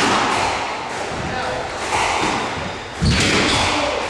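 Squash rally: the ball cracking off rackets and thudding against the court walls, each hit echoing in the hall. There are sharp hits near the start and about two seconds in, and a heavier thud about three seconds in.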